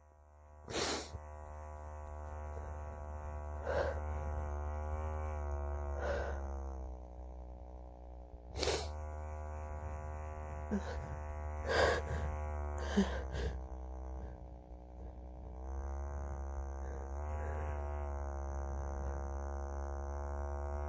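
Small handheld vibrator buzzing steadily while pressed against the outside of the nose, its pitch and strength shifting a little as the pressure changes. Several short sharp sounds break over the buzz.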